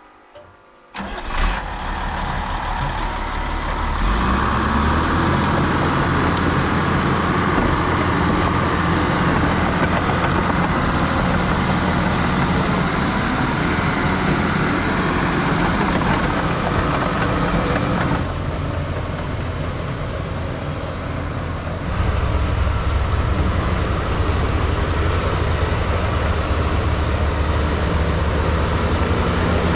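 Case crawler bulldozer's diesel engine running steadily while the machine clears brush and small trees. It comes in about a second in and turns a step louder and deeper about two-thirds of the way through.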